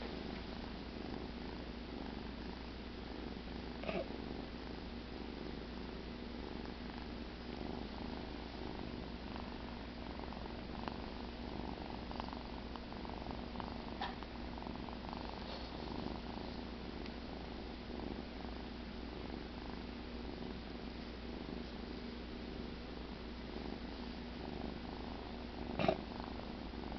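Sleeping kitten purring steadily and softly, with a few faint clicks and one short louder sound near the end.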